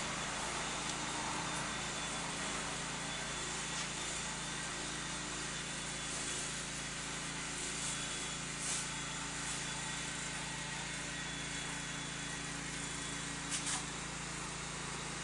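A steady low mechanical hum over even background noise, with a couple of brief clicks in the second half.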